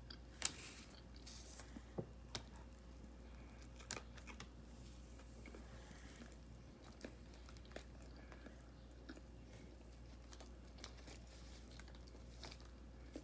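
Faint chewing and mouth sounds from a person eating a soft sub sandwich, with scattered soft clicks, the sharpest about half a second in, and a roll being torn by hand.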